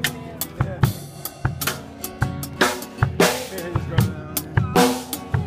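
Drum kit playing a steady beat, kick and snare hits with cymbal crashes about every half second to a second, over strummed guitar chords.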